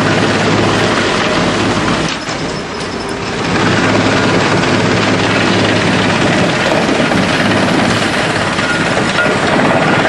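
Drum wood chipper running and chipping wood, a loud steady mechanical din with a low hum, as chips stream off its discharge conveyor. The noise eases briefly about two seconds in, then picks up again.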